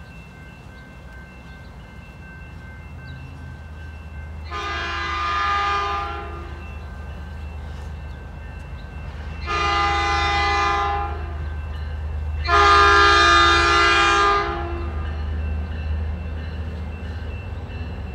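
An approaching Amtrak passenger train sounds its multi-note horn in three long blasts, the last the loudest, over a low rumble that builds as the train nears.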